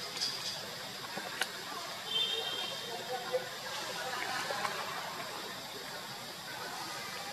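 Outdoor forest ambience: a steady hiss with a few faint clicks and a short high-pitched chirp about two seconds in.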